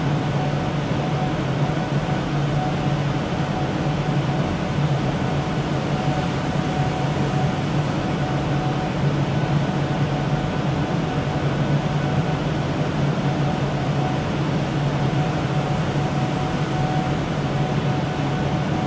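Steady whir of computer-room server fans and air cooling, with a constant low hum and a fainter higher tone running through it.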